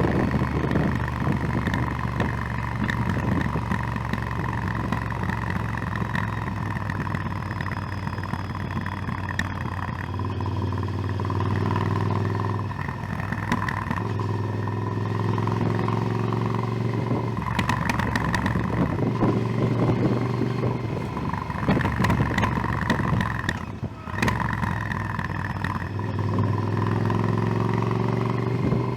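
Motorcycle engine running under way, its note climbing in several stretches as it accelerates, with short breaks between them as gears are shifted.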